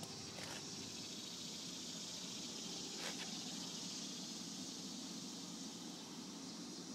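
Steady high chirring of insects, with a couple of faint brief clicks about half a second and three seconds in; no bell strike is heard.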